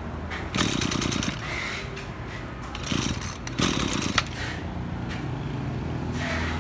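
Small two-stroke brush cutter engine running at low speed, with a few short, louder bursts of noise over it.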